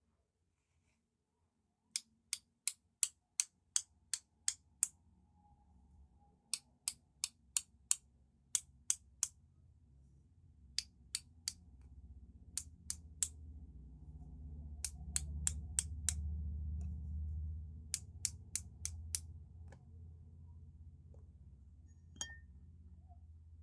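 Paintbrush handle tapped sharply against a second brush in five short runs of quick taps, about three a second, splattering white paint as snow. A low rumble swells in the background mid-way, and there is a single clink near the end.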